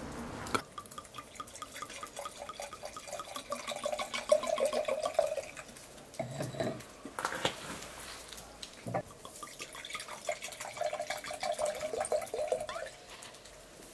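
Liquid in a pot of stew bubbling: a quick run of small watery plops. There are a few light knocks about six to nine seconds in.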